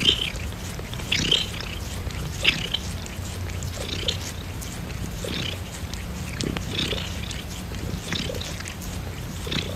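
Domestic cat purring close to the microphone: a steady low hum with a breathy pulse about every second and a half.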